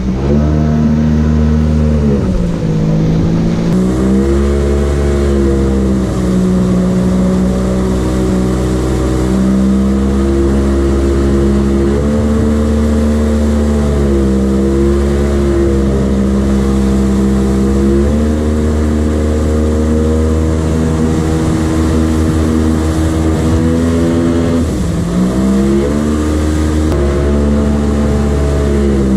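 Outboard motor of a jet boat running under way, its pitch dipping as the throttle eases off and climbing again several times, most deeply about two seconds in and near the end.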